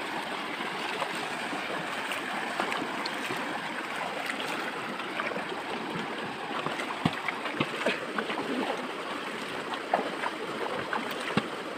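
Shallow stream water running steadily over rocks. In the second half there are a few short splashes and knocks as a metal bucket of fish is dipped and swished in the water.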